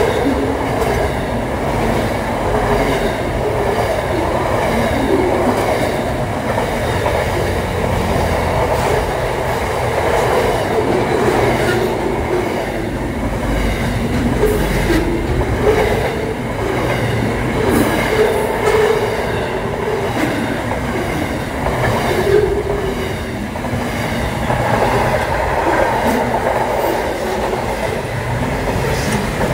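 Double-stacked container freight train rolling past: a steady rumble and rattle of wagon wheels on the rails, with clicking as the wheels cross rail joints.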